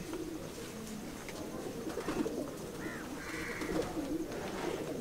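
Pigeons cooing, several low wavering coos one after another.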